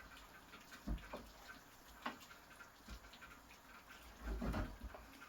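Scattered light clicks and knocks of a utensil against a pan while a cream sauce is stirred, with a duller low bump about four seconds in.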